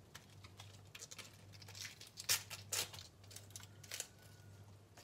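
Blanched cabbage leaves being torn and pulled apart by hand, a few short soft crackles of tearing and rustling, the loudest about two and a half seconds in.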